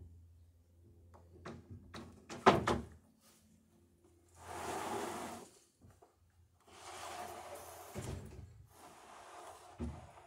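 Long wooden boards being handled on sawhorses: a run of knocks as planks strike one another, the loudest about two and a half seconds in, then long scrapes of board sliding over board, with a couple of low thuds.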